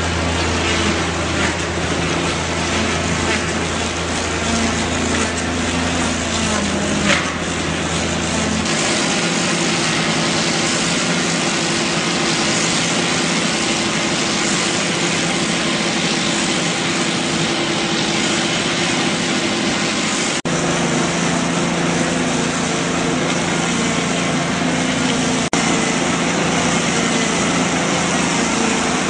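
Log lathe running: steady machine noise with a motor hum, changing abruptly a few times.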